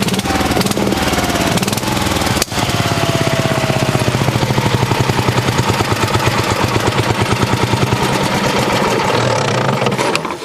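Terra-Jet amphibious ATV engine running hard with a rapid, steady firing chatter as the machine is backed up from the creek edge. There is a brief break in the sound about two and a half seconds in.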